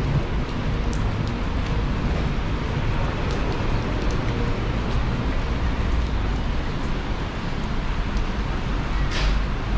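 Steady city street traffic noise with a low rumble of wind on the microphone, and a short falling hiss near the end.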